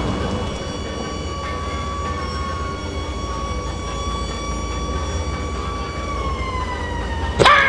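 Vehicle engine sound effect: a steady high whine over a low rumble, the whine dropping in pitch near the end, then a sudden loud whoosh.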